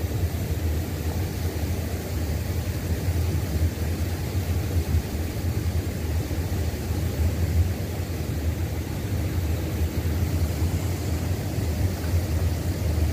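Wind buffeting the microphone: a steady, unbroken low rumble.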